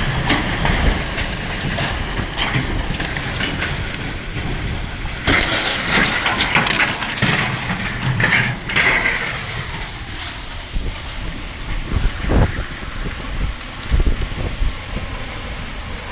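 Strong storm wind roaring and buffeting the microphone, with rain and sharp knocks and bangs now and then. The uploader takes the storm for a tornado or hurricane.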